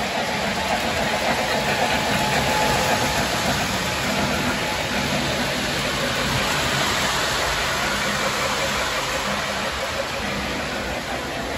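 O-gauge model trains running on a three-rail layout: a steady rolling rumble and clatter of wheels on the track, with a faint low hum under it.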